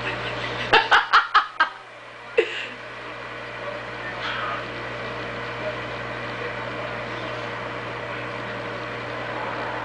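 Microwave oven running with a steady hum. About a second in, a short laugh in five quick bursts cuts over it.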